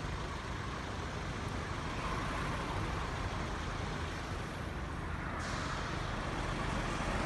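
Road traffic at a level crossing: a steady wash of engine and tyre noise from cars and heavier vehicles, with a low rumble.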